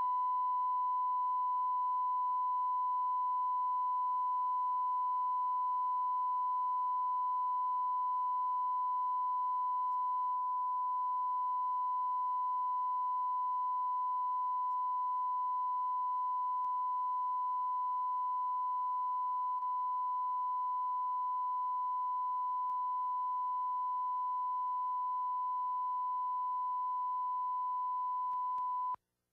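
Steady 1 kHz line-up tone of the kind recorded with colour bars at the head of a videotape, used as the audio level reference: a single unbroken pitch at constant level that cuts off near the end.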